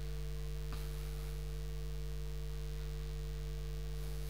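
Steady electrical mains hum, a low drone with a few higher overtones, and one faint click under a second in.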